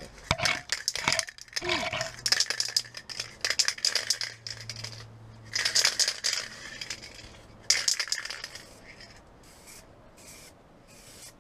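Aerosol spray paint can being shaken, its mixing ball rattling in bursts of quick clicks, with knocks from handling at the start.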